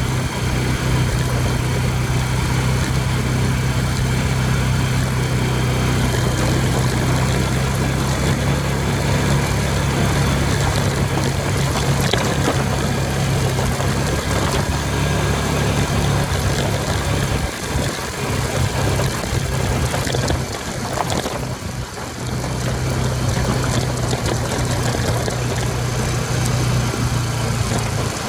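ATV engine running steadily on the trail ride. Its note eases off and breaks up for a few seconds about three quarters of the way through, then picks up again.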